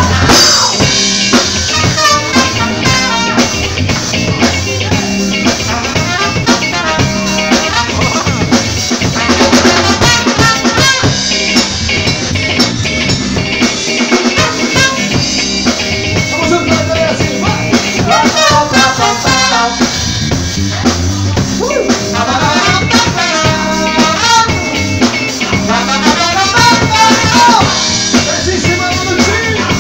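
Live band playing: a trumpet and trombone horn section over electric guitar and a drum kit.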